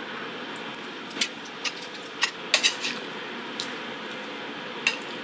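Metal chopsticks clicking and tapping against a stainless steel bowl while eating, about eight short, light clicks spread irregularly over a steady background hiss.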